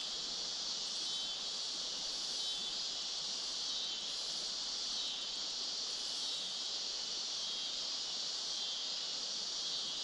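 Steady, high-pitched chorus of insects at dusk, with a faint repeating pulse.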